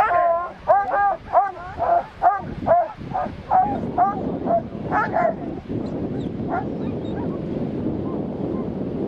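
Dogs barking and yelping in a rapid run of short, high calls, about two a second, which stop about five and a half seconds in. A steady rushing noise follows.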